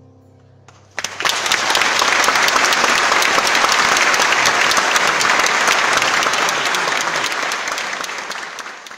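An audience breaking into loud applause about a second in, just as the last held note of the music dies away; the clapping stays thick and steady, then thins a little near the end.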